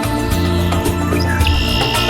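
Background music with a bass line and a regular beat, with a brief high buzzy sound about one and a half seconds in.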